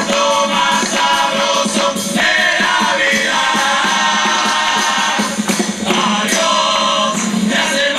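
A murga chorus of male voices singing together in Uruguayan carnival style, backed by the murga's drums and cymbals (bombo, redoblante and platillos).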